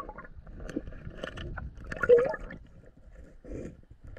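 Muffled river water heard underwater, gurgling, with small scrapes and knocks as a hand gropes over the stony riverbed and picks up an old glass bottle. A louder gurgle comes about two seconds in.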